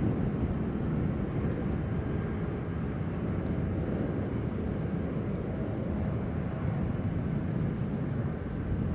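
Four-engine Airbus A340 airliner's jet engines running at low thrust while it taxis and turns onto the runway: a steady low rumble.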